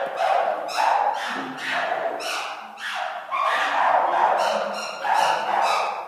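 Chimpanzees calling loudly: a rapid run of hoots and screams, about two a second, with a brief shrill shriek near the end.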